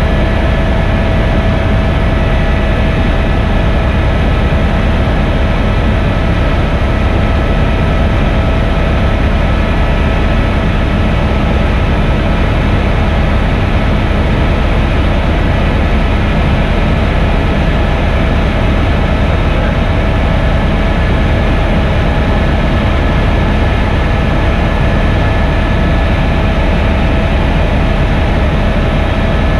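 Helicopter in steady flight: constant loud engine and rotor drone with a deep rumble and a few steady whining tones above it.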